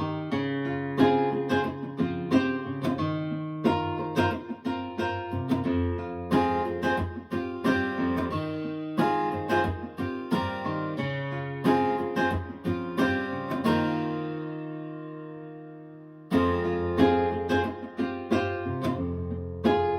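Acoustic guitar music played back through Fyne Audio F500 SP hi-fi loudspeakers: plucked notes over a bass line. Near the end a chord is left to ring and fade for about two seconds before the playing starts again.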